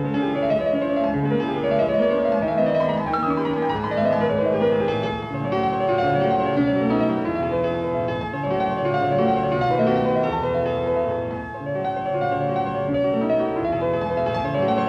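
Piano music in the manner of a silent-film accompaniment, a busy run of many short notes.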